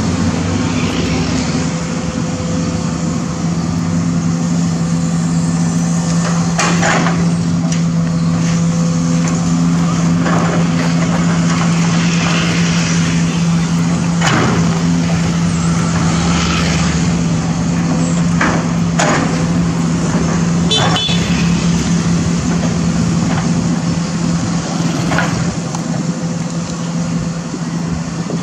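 Sumitomo SH210 hydraulic excavator's diesel engine running steadily under work, with several short knocks and scrapes from the bucket working soil and broken concrete.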